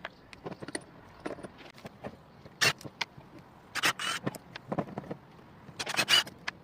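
Irregular metallic clicks and clatter with a few short, louder bursts, as the screws of an angle grinder's gear-head housing are driven out with a drill and handled.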